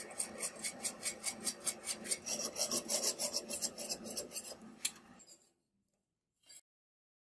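Hand filing against a small brass part spinning in a lathe: quick, even rasping strokes, about four to five a second, over the lathe's steady running. Both stop about five seconds in, followed by one short scrape.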